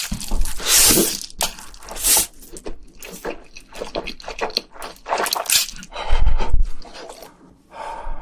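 Close-miked eating: a run of crunchy bites mixed with wet, squishy chewing.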